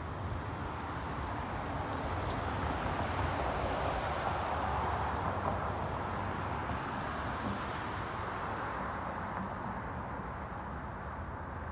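Road traffic driving past: tyre and engine noise swells to a peak about midway and fades again as cars pass, over a steady low rumble.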